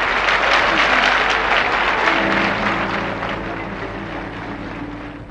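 Concert audience applauding, the clapping fading away, while a backing band comes in about two seconds in with a long held chord.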